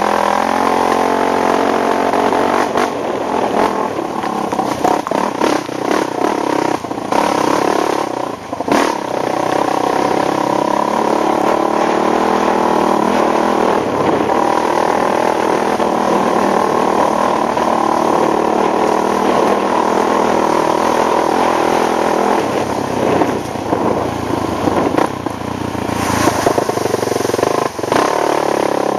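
ATV engine running under load as the machine is ridden, its throttle easing off briefly a few times, with occasional knocks from the ride.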